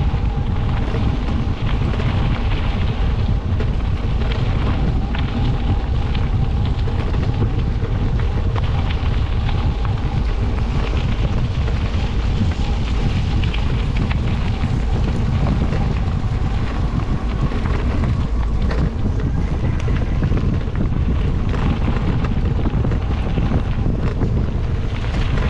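Wind buffeting the microphone while riding an e-bike off-road: a loud, steady rumble that runs on without a break.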